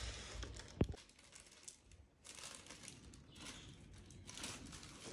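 Soft crinkling and rustling of balloons and decoration material being handled, in short scattered patches, with one sharp tick about a second in.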